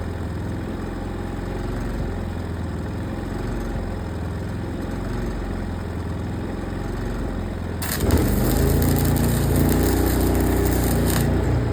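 An engine idling steadily. About eight seconds in, a welding arc strikes and crackles loudly for about three seconds, a tack weld on the steel plate, then cuts off.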